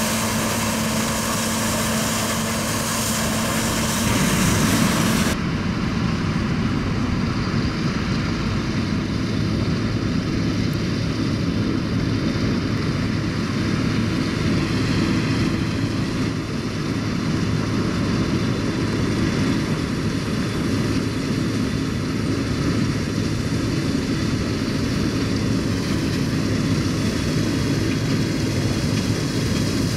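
Claas Lexion combine harvester running under load while cutting oilseed rape: a steady engine and machinery drone. About five seconds in the sound changes abruptly, losing its high hiss, then runs on steadily.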